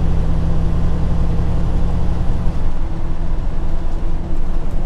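Semi truck's diesel engine and road noise inside the cab at freeway speed: a steady low engine hum that turns rougher and less even a little over two seconds in.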